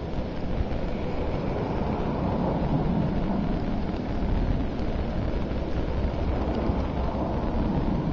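Blizzard wind buffeting the camera microphone: a steady low rumble with no breaks.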